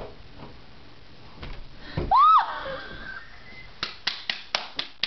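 A short, high yelp about two seconds in, rising and falling in pitch, then a quick run of sharp slaps, about four a second, near the end.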